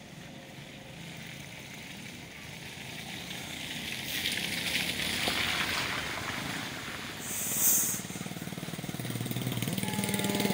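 A small motorcycle engine approaching, its pulsing exhaust stepping up in pitch over the last second or so. Before it comes a rising wash of road noise that peaks about halfway through, and a short, sharp hiss, the loudest sound, just before eight seconds in.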